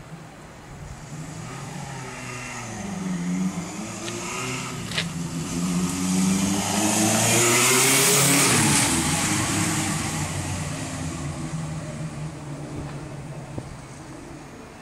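1971 Honda CB750 Four K1's air-cooled inline-four engine approaching with its revs rising and falling, loudest as the motorcycle passes close about eight seconds in, then fading as it rides away.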